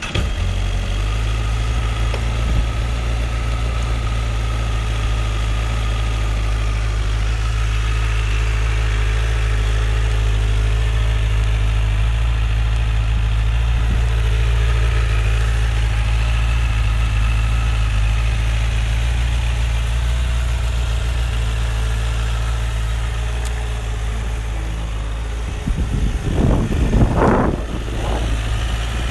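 2009 Honda CBR1000RR's inline-four engine catching right at the start and then idling steadily. Near the end, a few seconds of irregular gusty noise, like wind on the microphone, sits over the idle.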